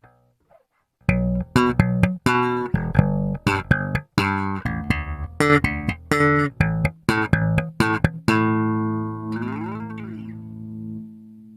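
Cort GB64JJ electric bass with its unprocessed signal (no effects, EQ or compression): a fast run of short plucked notes, then one note left to ring, bent up and back in pitch, fading away.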